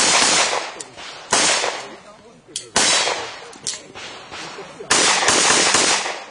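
Handgun fire in rapid strings: four bursts of quick pistol shots, each string about a second long, with short pauses between them.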